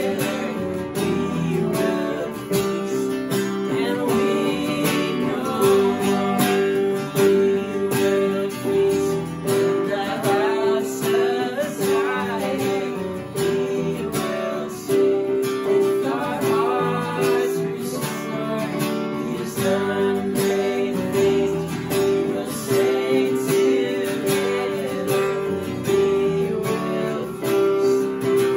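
Two men's voices singing a worship song together over a strummed acoustic guitar.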